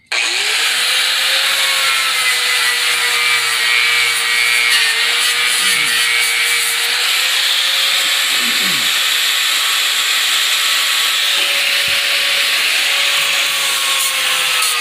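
Electric angle grinder starting abruptly and then grinding the rusty steel frame rail of a 1964 Dodge wagon. It makes a steady, loud grinding noise, and the motor's pitch wavers slightly as the disc is pressed into the metal.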